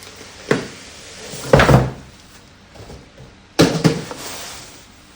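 Packaging being handled and opened by hand. There is a knock about half a second in, a louder clatter of knocks and crackling around a second and a half, and a sharp knock with a short rustle a little past the middle.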